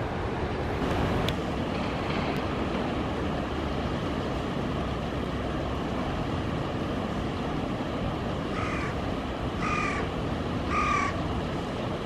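A crow cawing three times, about a second apart, over a steady rushing background noise.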